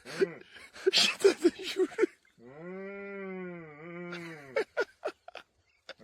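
A farm animal bleating: one long call that rises and falls in pitch, with a brief catch near its end, and a second call starting at the very end. Short sharp clicks and knocks come before and between the calls, loudest in the first two seconds.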